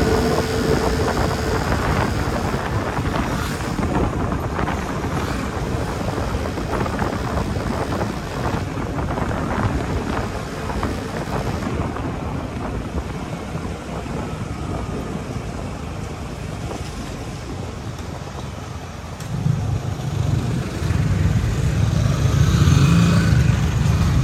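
Wind buffeting the microphone on a moving motorcycle, with the engine running underneath. About 19 seconds in, a louder low engine drone comes in as motorcycles and tricycles pass close by.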